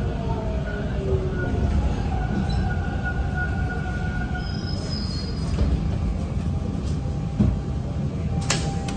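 Toronto subway T-1 train braking into a station: the GTO-VVVF traction motors whine in several tones that fall in pitch as the train slows, over a steady rumble of wheels on rail with some wheel squeal. A short burst of noise comes near the end.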